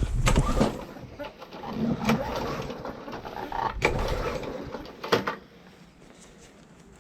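Petrol lawn mower's pull-cord recoil starter yanked several times, about one and a half seconds apart, the engine turning over with a whirring rattle but not catching. It goes quieter near the end.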